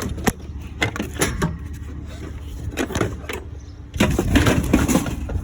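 Scattered knocks and clunks of curbside scrap being picked up and handled, then a loud rattling clatter from about four seconds in.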